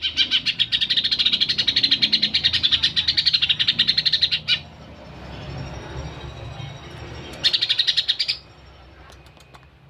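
Cucak hijau (green leafbird) singing a rapid chattering run of quickly repeated sharp notes for about four and a half seconds, then, after a pause, a second short burst of about a second.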